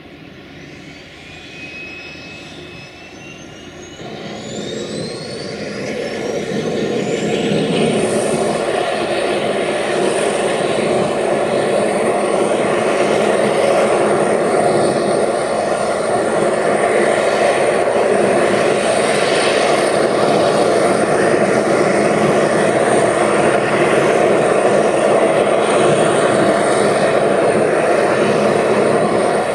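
A turbine on an Antonov An-12 spooling up at start: a whine rises steadily in pitch for about seven seconds as the noise grows louder, then it settles into a steady run with a high whine on top.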